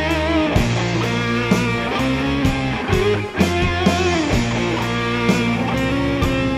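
Instrumental melodic rock/metal: a lead electric guitar melody with wavering, bent notes over sustained bass and keyboards, with steady drum hits.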